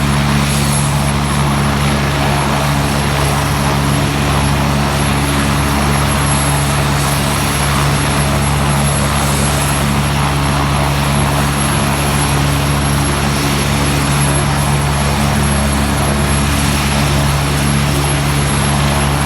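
Agusta AW109SP rescue helicopter running close by: loud, steady rotor and twin-turbine noise with a constant low hum that does not change in pitch or level.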